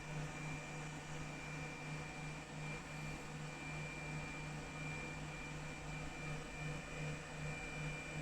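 Laser back-glass removal machine running: a steady low hum with a faint, thin high-pitched whine and a hiss.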